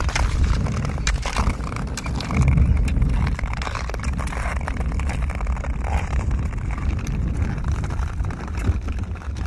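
Strong wind buffeting the microphone during travel over lake ice: a heavy, steady low rumble with scattered clicks and scrapes over it.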